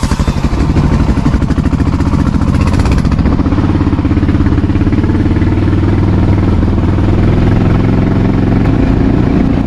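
Honda XR650L's single-cylinder four-stroke engine running under way, picking up revs in the first second and then holding a fairly steady pace.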